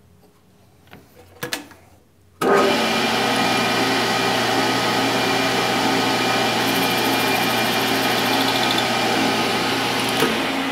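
Metal lathe switched on about two seconds in, its motor and spindle then running steadily with a steel part spinning in the four-jaw chuck. A couple of faint clicks come before it starts.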